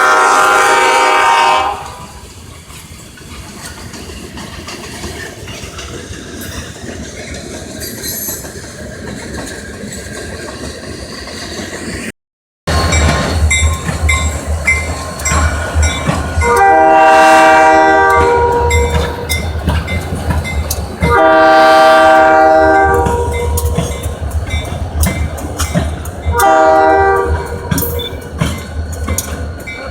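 Train passing with steady rumble and wheel clicks, then, after a cut, a locomotive's engine rumbling close by while its air horn sounds the grade-crossing pattern: two long blasts, a short one and a long one. A horn blast also cuts off about two seconds in.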